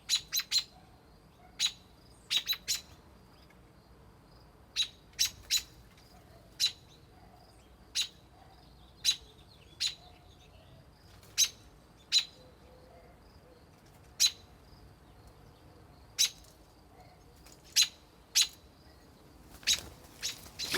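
Adult robin giving short, sharp alarm calls over and over, some single and some in quick runs of two or three, agitated at a person near its nest of newly hatched chicks.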